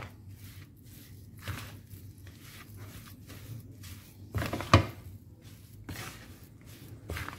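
Plastic rice paddle stirring and mashing damp, crumbly fishing-bait dough in a plastic bowl: soft scraping with irregular knocks of the paddle against the bowl, the loudest a little under five seconds in.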